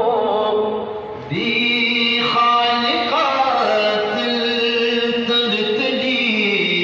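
A man singing a Pashto naat into a microphone, holding long notes that slide up and down between pitches, with a short break about a second in.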